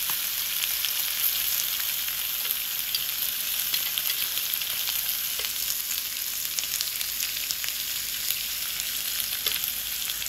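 Meat sizzling steadily on a tabletop grill grate, a constant hiss sprinkled with small crackles of spitting fat.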